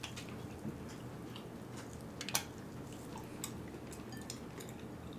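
Faint chewing of food with scattered small clicks, the sharpest about two seconds in, over a low room hum.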